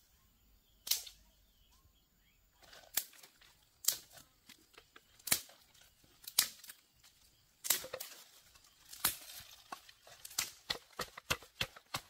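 Wooden pestle pounding red chillies and garlic in a wooden mortar: sharp knocks, spaced a second or more apart at first, quickening to about three a second near the end.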